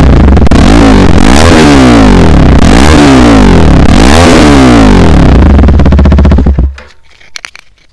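KTM Duke 250 single-cylinder engine revved through an aftermarket silencer with its dB killer removed, blipped up and back down about once a second, then shut off abruptly near the end. The note is smooth and somewhat muffled rather than raspy.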